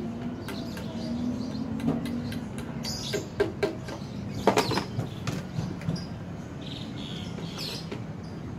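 Plastic toy hammer tapping plastic pegs into the holes of a Blast Box balloon game: a handful of sharp knocks, most of them between about two and five seconds in, over a steady low hum.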